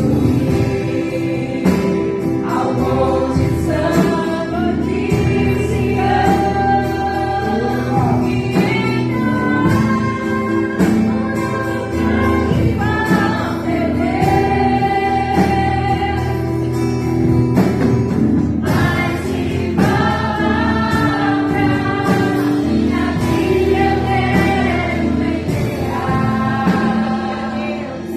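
Live gospel praise music: a group of singers in a choir over steady instrumental backing.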